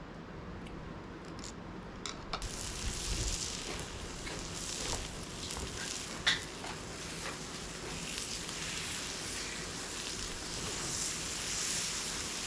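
Food sizzling on a hot cooking surface. The sizzle starts suddenly about two seconds in, with scattered small crackles and one sharp click partway through.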